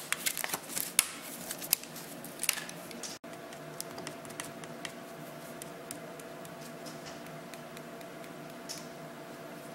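Utility knife blade cutting thin milk-jug plastic in short scraping strokes with sharp clicks, for the first few seconds. After that, only a quiet steady hum with a few faint ticks as a tube of graphite lubricant is squeezed into the jig.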